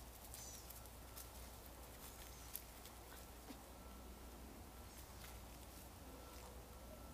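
Near silence: faint outdoor ambience with a few short, high chirps near the start, typical of small birds, and a scattering of soft ticks.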